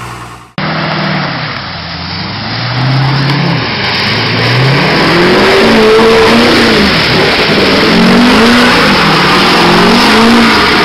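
Hummer H1 engine revving hard, its pitch rising and falling over and over as it strains through deep mud, over a continuous rushing noise. The sound breaks off sharply about half a second in, where a new clip starts.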